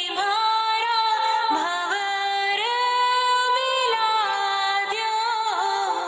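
A woman singing a Rajasthani folk song, drawing out long held notes with slides in pitch between them.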